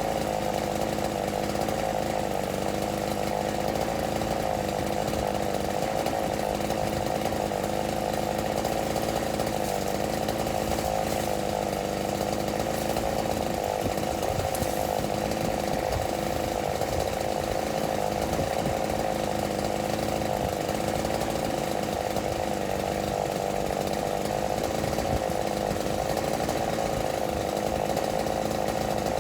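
Chainsaw running steadily at a constant high speed, without pauses and with no rise or fall in pitch.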